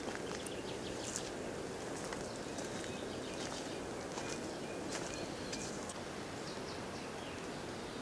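Forest ambience: a steady low hiss with scattered faint, short high chirps and calls.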